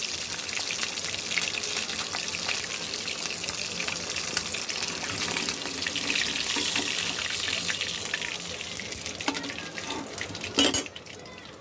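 Hilsa fish tail sizzling as it fries in hot oil, a steady hiss that eases off gradually. Near the end comes a short loud clatter, and after it the sizzle is much quieter.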